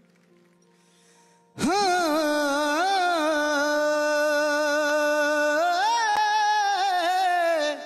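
Near silence for about a second and a half, then an unaccompanied singing voice takes up one long held note, steady in pitch with a slight waver. It adds a couple of short ornamental turns and a rise in pitch near the end before fading.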